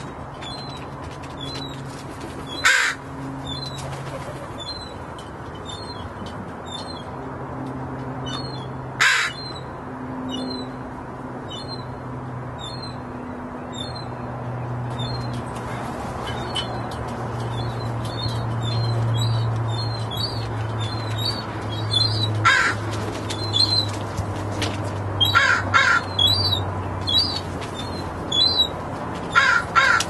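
Crows cawing: single harsh caws about three and nine seconds in, then a run of caws over the last eight seconds. Underneath are many faint high chirps and a low steady hum.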